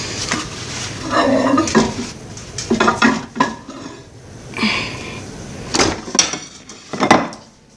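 A plate and cutlery clattering and scraping in about five short bursts as food is served from the plate.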